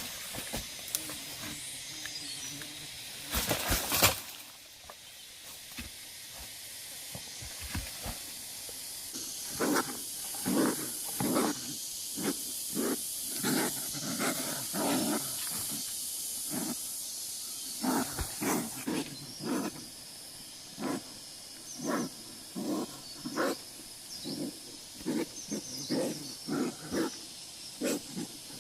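An animal calling over and over in short calls, about one or two a second, starting about nine seconds in, over a steady high hiss. A brief loud scrape or rustle comes just before four seconds in.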